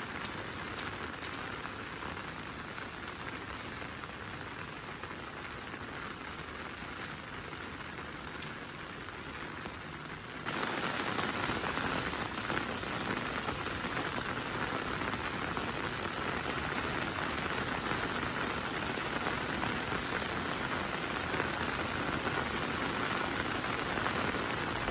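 Steady rain falling on a surface, a constant hiss that suddenly becomes louder about ten seconds in.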